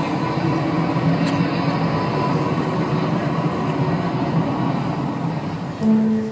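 Steady, dense rumbling soundscape from the show's sound system, with faint held tones in it. About six seconds in, single plucked guitar notes begin.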